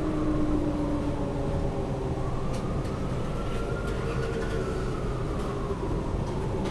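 Transit bus interior while the bus is under way: a steady low rumble of the drivetrain and road, with a whine that falls in pitch early on, then rises and falls again about four seconds in as the bus speeds up and slows. A few faint clicks and rattles are mixed in.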